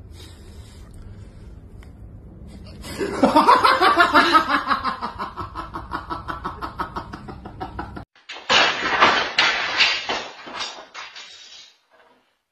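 A person laughing hard in two long bouts: the first starts about three seconds in, its pitch falling, and the second follows after a short break.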